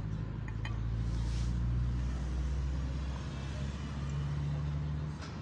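Low, steady hum of an engine running, with a couple of light clicks about half a second in.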